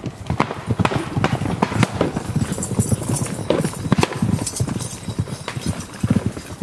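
Horses' hooves beating on the ground: a quick, irregular run of knocks and thuds.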